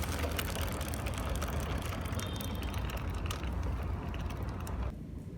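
Motorcycle drive chain and sprocket running with a rattling 'ktek ktek' clatter over the low rumble of the bike, the noise of a chain that has gone noisy. It drops away sharply near the end.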